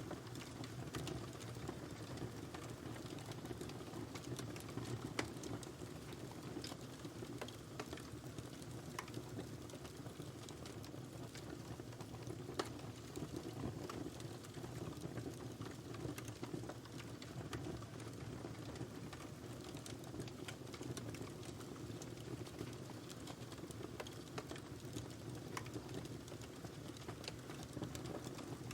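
Wood fire burning in a fireplace: a steady low rumble of flames with scattered small crackles and pops, one sharper pop about halfway through.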